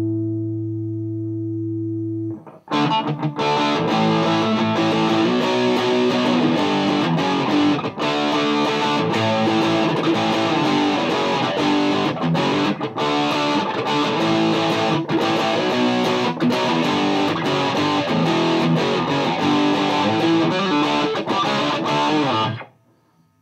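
Gibson Les Paul through a Mesa Boogie Dual Rectifier in vintage mode, with the power set to spongy, into a Marshall 1960A cab, playing distorted. A held chord rings and is cut off a couple of seconds in, then about twenty seconds of riffing stop abruptly near the end.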